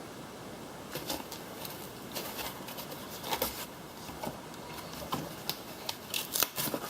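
Packaging handled as a computer power supply is lifted out of its box: scattered light rustles, clicks and knocks, bunching near the end.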